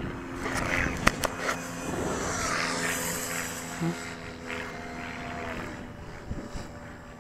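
Camera being handled, with two sharp knocks about a second in, then rustling noise over a faint steady hum.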